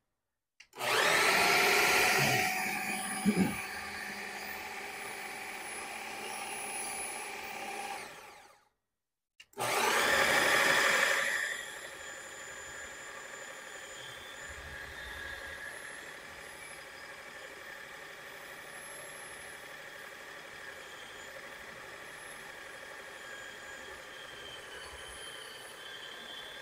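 Ninja food processor motor running with its beater blade churning meat filling; it starts loud and settles, stops about eight seconds in, then restarts after a second's pause and runs steadily.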